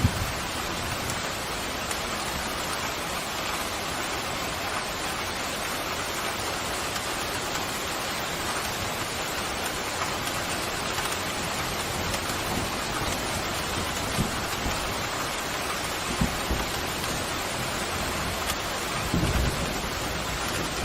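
Steady heavy rain falling, with a few brief low rumbles and thunder starting to rumble near the end.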